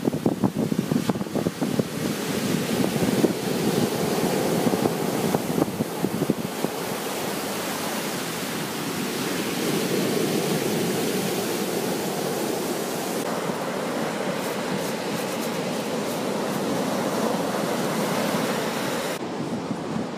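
Ocean surf washing onto a sandy beach, a continuous rushing noise, with wind buffeting the microphone. It is gusty and choppy for the first few seconds, then settles into a steadier rush.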